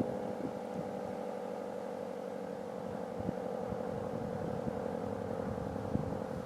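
Federal Signal SD-10 dual-tone outdoor warning siren sounding a steady tone. The higher of its two tones fades in the first second while the lower tone holds, with wind rumbling on the microphone underneath.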